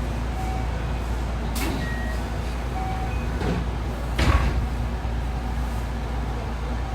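Cabin sound of a JR West 207 series commuter train: a steady low hum with a few short knocks, the loudest a thud about four seconds in.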